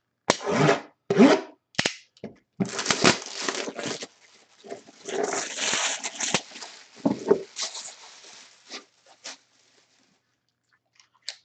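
Packaging being torn and handled as a box is opened: several short scratchy rips in the first few seconds, then a longer stretch of crinkling and tearing. It dies away about two-thirds of the way through.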